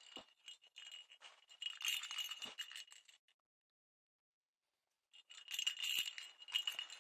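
Plastic ball cat toy with a bell inside, shaken by hand and jingling in two spells: about three seconds, a pause, then about two seconds more near the end.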